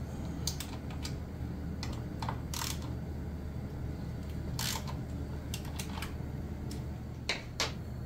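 Scattered, irregular metallic clicks and short rasps of a hand socket driver working the bolts of a motorcycle's rear brake caliper, over a steady low hum.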